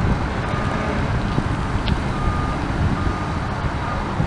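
Steady low rumble with wind buffeting the microphone, and a faint high beep that sounds several times in short, uneven pulses.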